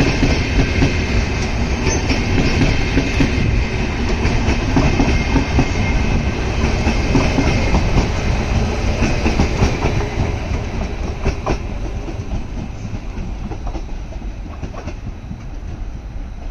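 Double-deck passenger coaches rolling past close by, their wheels clacking over the rail joints. The sound fades away over the last few seconds as the end of the train passes and it draws off.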